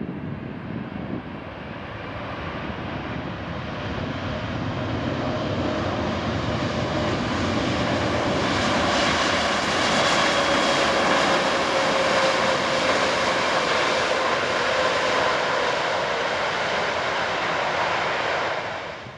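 Boeing 777's twin jet engines at high power as the airliner rolls down the runway close by, a rumbling roar with a steady whine that grows to its loudest as it passes, then sinks slightly in pitch and eases off.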